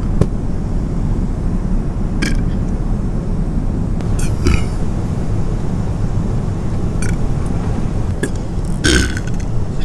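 Steady low rumble of a jet airliner's cabin in flight, with a few brief clicks and rustles scattered through it, the strongest near the end.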